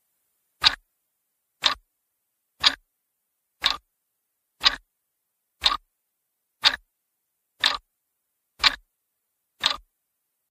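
Clock ticking sound effect: a sharp tick about once a second, ten times, with silence between, marking a time skip.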